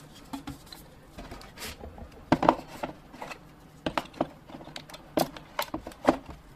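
Wireless access point accessories being packed back into their cardboard box by hand: scattered light knocks, taps and rustles of cardboard, plastic and metal parts, the loudest knock about two and a half seconds in.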